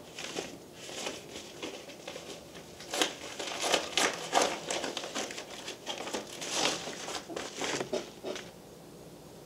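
Paper mailing envelope being handled and opened, crinkling in a quick run of short rustles that stop about eight and a half seconds in.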